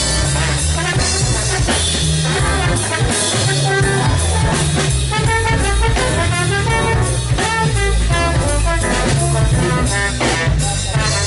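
Live jazz band with a trombone playing the lead line over keyboard, a bass line and a drum kit.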